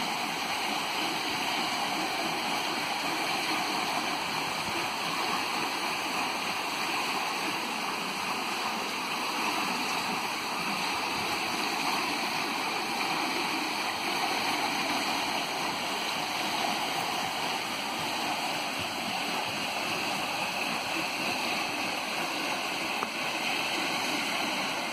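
Steady rushing of millstream water running through the mill's sluice channel and over stones, even and unbroken.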